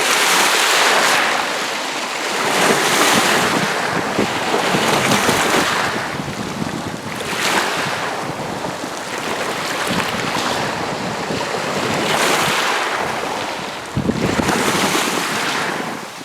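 Small lake waves washing against the shore in a steady rhythm, a swell of splashing about every two seconds.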